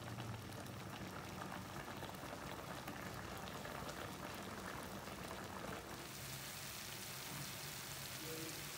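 Chicken pieces in masala gravy bubbling in a nonstick kadai over medium heat as the liquid boils down to dry. About six seconds in the sound turns to a finer, more even hiss.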